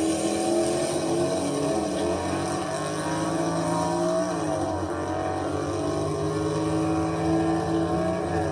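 Car engine running at a steady speed, its pitch dipping briefly and coming back up twice.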